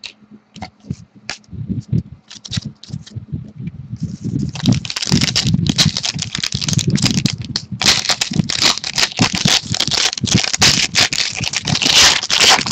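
Trading-card pack wrapper being handled: a few light clicks and rustles, then about four seconds in, dense crinkling and tearing as the plastic wrapper is ripped open and crumpled.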